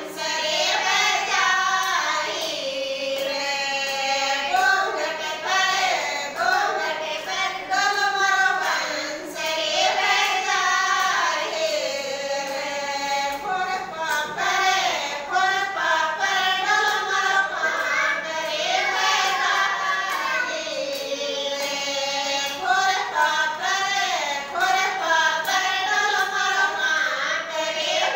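A group of women singing a Rajasthani khyal folk song together, unaccompanied, in a steady, continuous vocal line.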